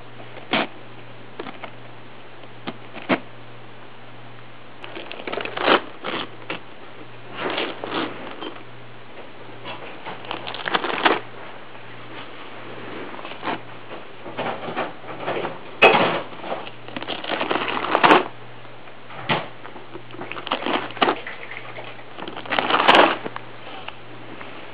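A cat tearing and shredding paper: irregular bursts of ripping and crinkling paper with a few sharp clicks, over a steady low hum.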